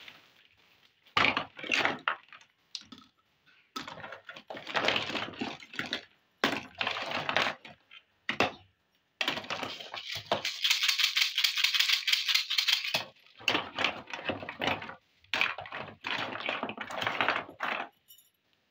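Small plastic toy kitchen pieces clicking and clattering as they are handled and set down, in short bursts with brief pauses between. About ten seconds in comes a denser run of rattling that lasts about three seconds.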